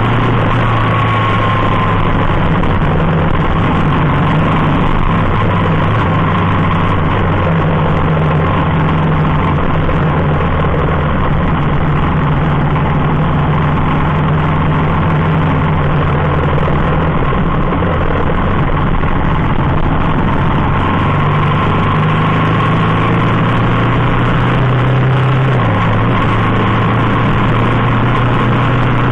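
Motorcycle engine running at road speed, its note shifting a few times, under a steady rush of wind and road noise.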